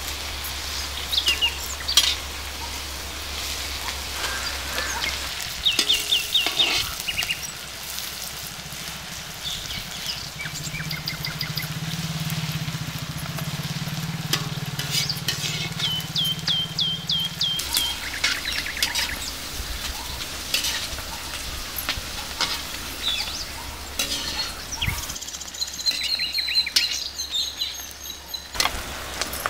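Oil sizzling in a large black wok, with scattered clicks and scrapes of a metal slotted ladle stirring it. Birds chirp over it, with a run of about six quick repeated chirps about halfway through.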